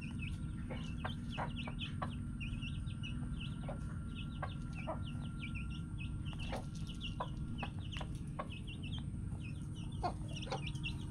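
Backyard chickens clucking, with many short high chirps of chicks peeping throughout, over a steady low rumble.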